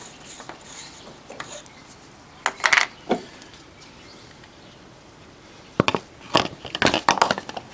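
Sharp clicks and knocks of hard objects being handled, in a short cluster about two and a half seconds in and a longer run of them from about six seconds in.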